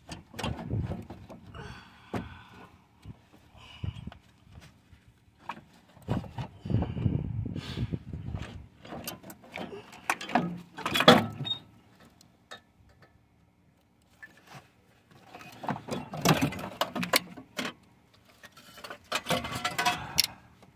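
Cylinder head of a GM LLT V6 being worked loose and lifted off the block by hand: irregular metal clunks, knocks and scrapes, with a lull about twelve to fifteen seconds in.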